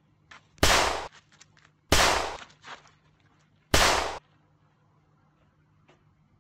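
Three loud pistol shots, each a sharp crack with a short fading tail, spaced about one and a half to two seconds apart, with fainter clicks and a smaller pop between them.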